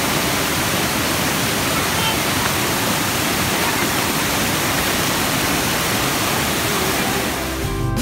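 Small waterfall cascading over rocks: a steady, loud rush of falling water. Just before the end it gives way to strummed acoustic guitar music.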